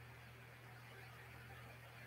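Near silence: room tone with a faint steady low hum and light hiss.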